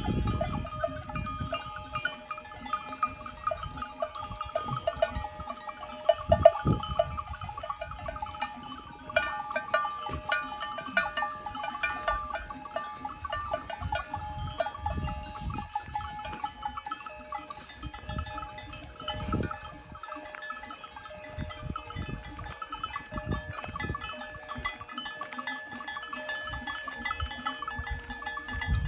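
Bells of a large herd of goats on the move: many bells clanking and ringing together in a continuous jangle, with occasional low thumps.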